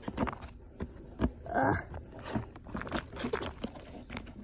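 Handling noise from a phone being moved about on fabric couch upholstery: scattered rustles, taps and small knocks, with one brief pitched sound about one and a half seconds in.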